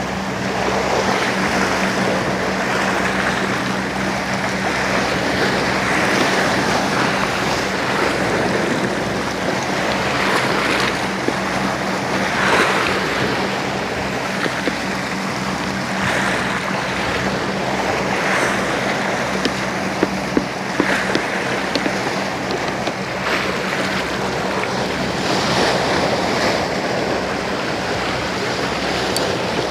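Sea waves washing and wind buffeting the microphone, over a steady low hum.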